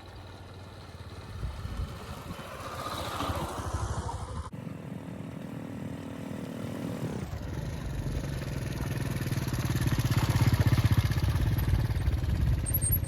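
Motorcycle engine running while riding, with wind and road noise. The sound breaks off abruptly about four and a half seconds in, picks up again, and grows louder toward the end.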